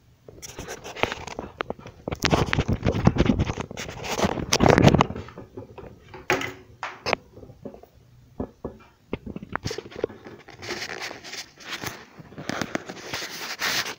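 Aluminium foil crinkling and crackling as hands tuck and handle the foil wrapped around a clay casserole pot, in irregular spells, loudest in the first few seconds and again near the end.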